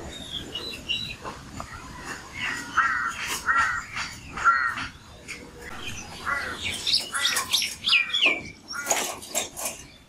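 Several birds calling together: a crow's harsh calls repeated a few times, with sharp chirps from smaller birds that grow busier over the last three seconds.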